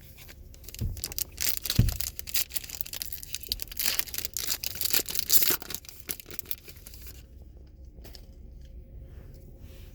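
A trading-card pack's wrapper being torn open and crinkled in the hands, a dense crackling that stops about seven seconds in.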